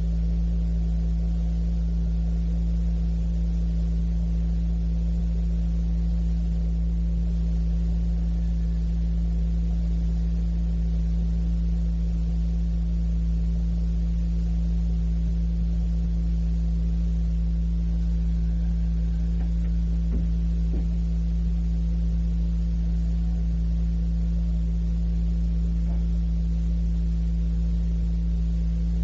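Steady electrical hum on an old cassette recording: several low tones held without change under a faint tape hiss. There are a couple of faint ticks about two-thirds of the way through.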